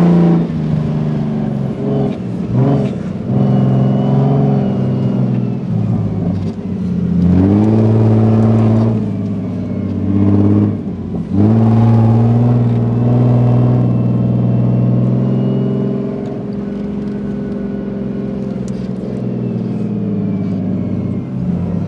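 Toyota Land Cruiser engine revving hard while driving over desert sand, heard from inside the cabin. The pitch drops briefly and then climbs again about 7 and 11 seconds in, and the engine eases to a steadier, quieter drone in the last few seconds.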